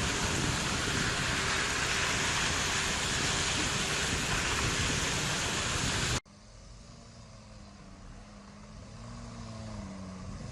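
A loud, steady rushing noise, like wind or road noise, cuts off abruptly about six seconds in. It gives way to a much quieter Sherp off-road vehicle engine running with a gently wavering pitch, slowly getting louder.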